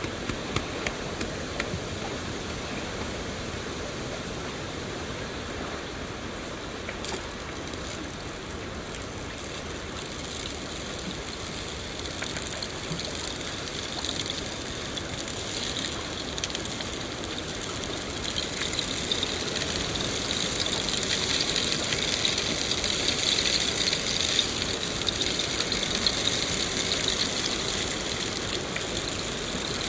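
Steady rain falling, with scattered faint drop ticks. The rain grows louder and hissier about two-thirds of the way through.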